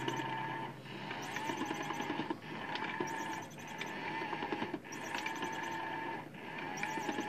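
Small battery-powered motor inside a Pop and Play cat toy whirring steadily, with light ticks and short breaks every couple of seconds.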